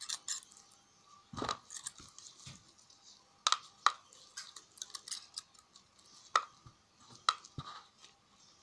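Irregular sharp clicks and small crunches of pliers working the steel can of an AA alkaline battery as it is peeled open.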